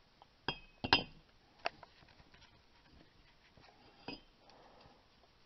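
Handled steel wheel hub parts give about four sharp metallic clinks with brief ringing. The loudest comes a little under a second in, one follows shortly after, and a last one comes near the end.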